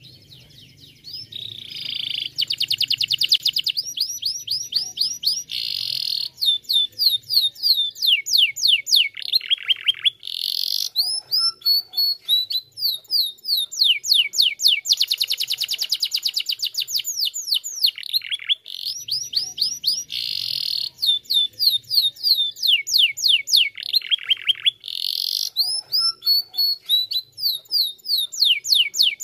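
Domestic canary singing a long, unbroken song: fast trills of repeated notes, quick falling sweeps and held buzzy rolls, one phrase giving way to the next every second or two.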